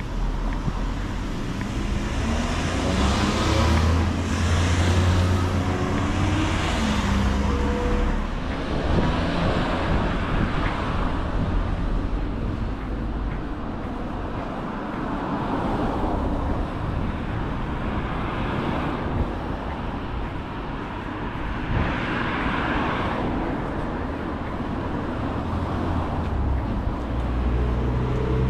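Road traffic: cars passing one after another, their engine and tyre noise swelling and fading over a steady low rumble, with the loudest passes in the first several seconds.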